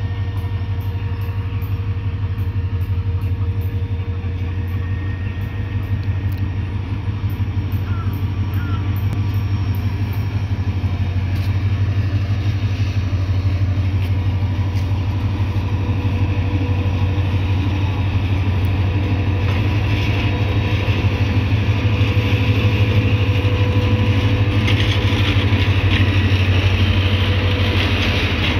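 Diesel locomotive hauling a passenger train out of a station, its engine a steady low pulsing drone that grows louder as it comes past. Near the end the rolling noise of the carriages on the track rises.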